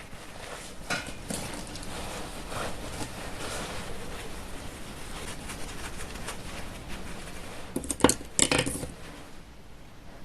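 Hands stuffing fibre filling into a crocheted doll head: soft rustling and handling noise, with a few sharp clicks and knocks about eight seconds in.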